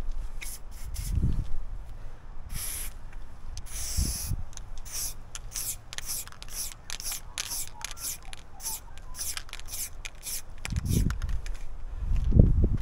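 Aerosol spray-paint can of black outline paint, sprayed in many short hissing bursts, one or two a second, with two longer sprays in the first few seconds. Low rumbling thuds come in now and then and grow louder near the end.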